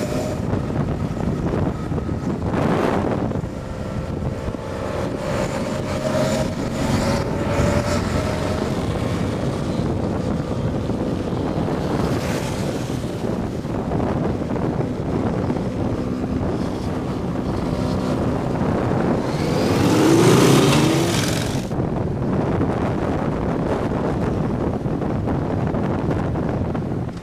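Wind buffeting the microphone over a motorcycle engine running steadily at road speed. About two-thirds of the way through, an engine note rises in pitch and grows louder, then falls back.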